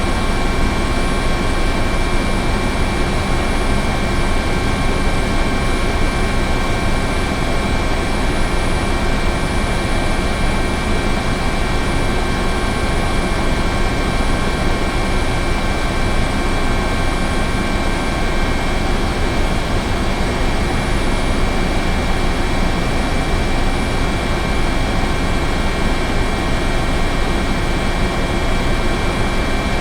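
Helicopter running steadily: dense rotor and engine noise with a constant high turbine whine, holding level throughout.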